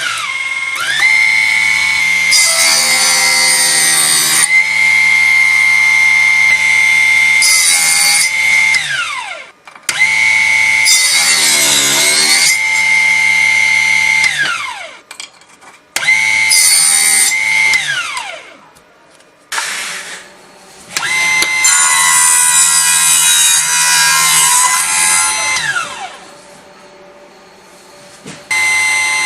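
Desktop mini table saw's small electric motor whining at a high steady pitch, switched on and off several times, winding down with a falling whine each time. While it runs, loud hissing bursts come as material is fed into the spinning blade and cut.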